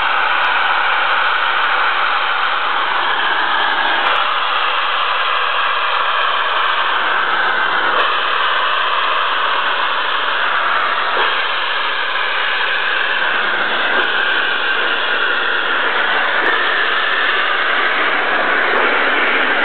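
Loud, steady hiss of steam escaping from the open cylinder drain cocks of BR Standard Class 5 4-6-0 steam locomotive 73096 as it moves off slowly.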